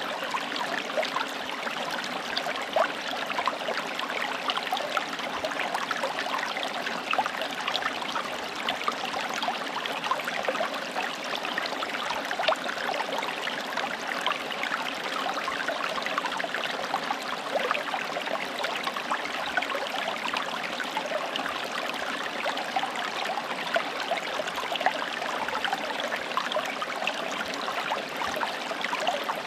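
A forest stream running steadily over rocks, a constant rush of water with small splashes and gurgles throughout.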